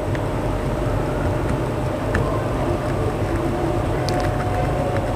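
A steady low mechanical hum like a bench fan or blower, with a few faint crackles as a hot soldering iron tip is worked over a flux-pasted BGA chip, scraping off old underfill glue.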